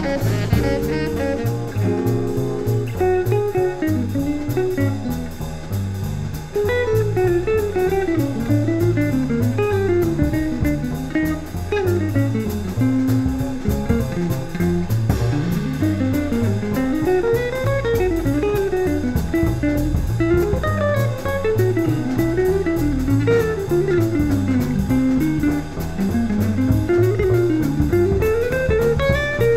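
Jazz guitar solo on an archtop guitar: fast single-note runs climbing and falling, over double bass and drum kit.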